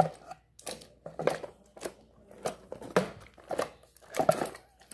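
Cardboard toy box being handled and slid open, with several short scrapes and rustles of card on card.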